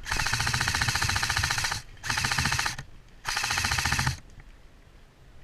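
Airsoft electric gun firing three full-auto bursts, a fast even rattle of the gearbox cycling. The first burst is the longest, then two shorter ones.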